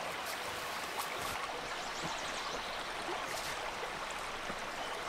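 Steady rushing of a forest stream, with a few faint rustles from footsteps and tarp fabric moving over the forest floor.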